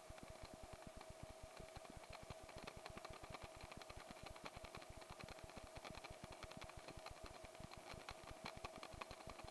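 Faint, muffled helicopter noise: a rapid, even beat of the rotor under a steady hum.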